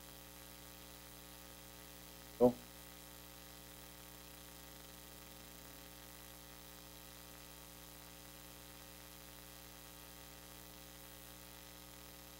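Steady electrical mains hum with faint hiss. About two and a half seconds in, there is one brief voice-like sound.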